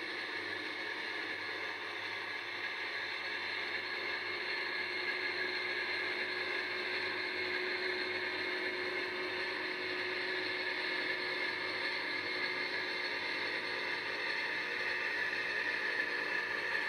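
Gauge 0 model Köf shunting locomotive running with a tank wagon: a steady mechanical whir from its motor and gearing with the rolling of wheels on rail, growing slowly louder as it comes closer.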